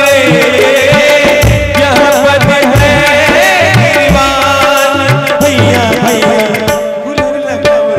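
Live Marathi devotional bhajan: tabla strokes keep a steady beat under a held drone note, while a male singer draws out a long, gliding melismatic line.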